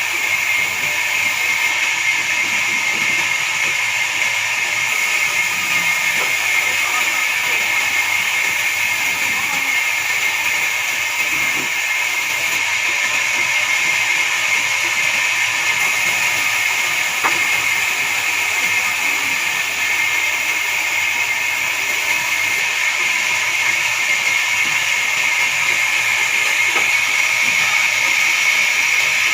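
Horizontal band sawmill running through a pine log: a steady, high-pitched hiss that carries on without a break.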